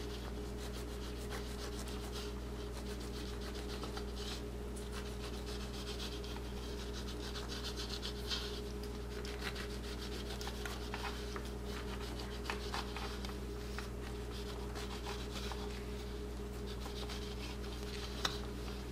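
Serrated knife sawing back and forth through a baked carrot-pineapple cake to cut off its domed top, a faint rasping scrape, over a steady low hum.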